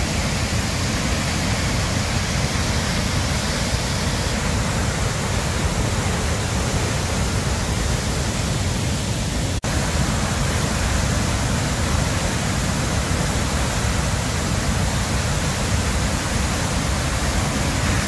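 A large river waterfall in flood, its heavy brown water thundering over the drop in one steady, loud roar. The sound cuts out for an instant about halfway through.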